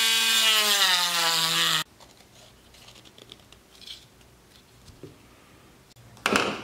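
Dremel rotary tool with a sanding drum grinding a 3D-printed PLA handle piece: a loud whine that falls slightly in pitch and cuts off suddenly after about two seconds. Then faint rubbing as the part is sanded by hand on sandpaper, and a short noisy burst near the end.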